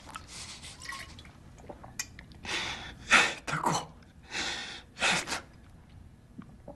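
A man sobbing: a few loud, ragged gasping breaths and sniffs in the middle, one of them breaking into a falling whimper.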